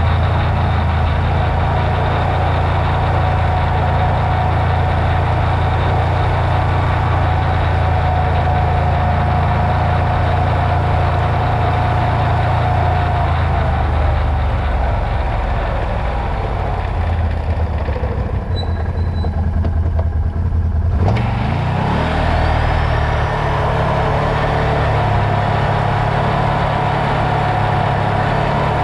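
Can-Am Renegade ATV's V-twin engine running steadily under way on a gravel road. Past the middle the engine note softens for about three seconds, then its pitch rises again as it picks back up.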